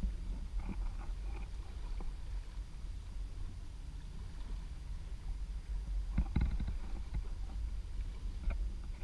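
Wind rumbling on the microphone and water splashing along the hull of a small sailing boat under way, with a brief cluster of louder slaps or knocks about six seconds in.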